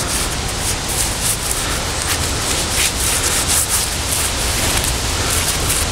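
Gloved hand rubbing and brushing soil off a heavy rusted metal cylinder, a suspected artillery shell: a steady scraping hiss with repeated short strokes.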